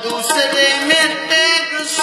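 Male voice singing a kirtan hymn in long melodic phrases over a steady harmonium drone.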